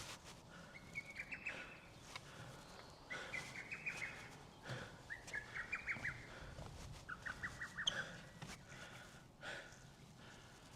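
A songbird singing a short, quick trilled phrase four times, about every two seconds, with faint footsteps on the ground.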